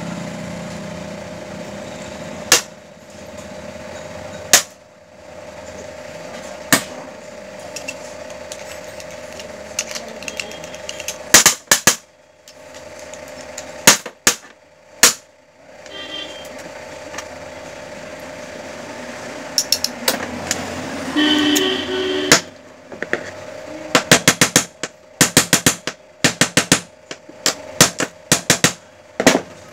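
Sharp clicks and knocks of small steel pressure-cooker whistle parts and hand tools being handled and set down on a hard work board, scattered at first and coming in quick clusters in the last third, over a steady low hum.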